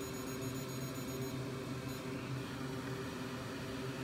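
Steady machine hum with a hiss, like a fan or blower on a repair bench, with a faint high-pitched electronic tone for about the first second and again briefly near two seconds in.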